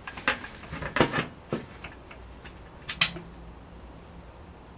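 Several short clicks and taps from handling a white mounting panel against a wall and setting a screw into its hole, the sharpest about one second in and about three seconds in.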